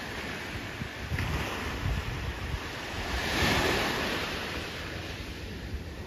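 Small waves breaking and washing up a sandy shore, the surf swelling loudest about three and a half seconds in. Wind rumbles on the microphone underneath.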